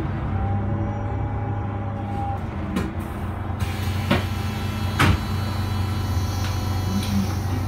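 Inside an Iveco Urbanway 12 city bus underway: a steady low engine and road drone, with three sharp knocks or rattles from the bus body about 3, 4 and 5 seconds in.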